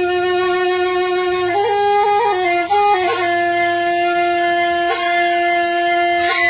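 Background music: a solo wind instrument playing a slow melody of long held notes, with a short run of quicker, higher notes about two seconds in.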